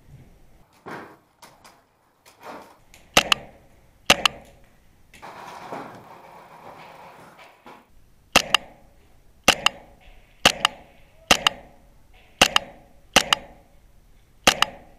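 HPA-powered airsoft G3 rifle firing single shots: two sharp pops about three and four seconds in, then a steady series of seven, roughly one a second, in the second half.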